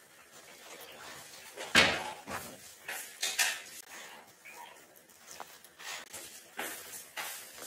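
Small dog chewing and tugging at a clump of long hair right at the microphone: irregular rustling and clicking noises, the sharpest about two seconds in.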